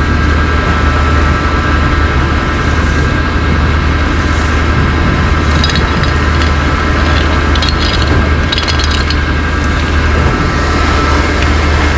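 An engine running steadily at an even speed, with a few light metallic clinks about halfway through.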